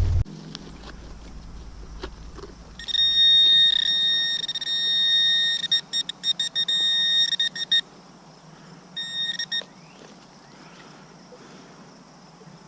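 Metal detector giving a steady, high electronic tone for about three seconds, then stuttering on and off. A second short tone comes about a second later.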